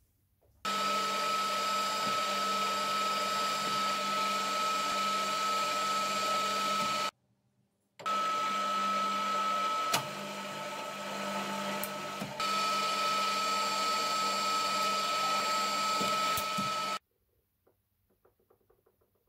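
Bench drill press running steadily with a high whine over a lower hum as a small bit drills holes through a metal strip held in a vise. It stops abruptly about seven seconds in, starts again a second later with a sharp click a couple of seconds after, and stops abruptly near the end.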